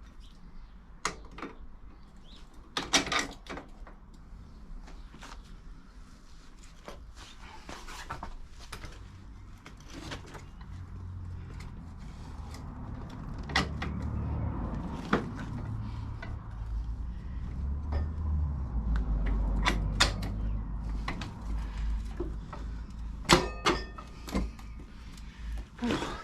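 Scattered metallic clicks and knocks of a motorcycle's rear wheel, spacers and tools being handled as the wheel is refitted. From about ten seconds in, a low rumble builds and carries on to near the end.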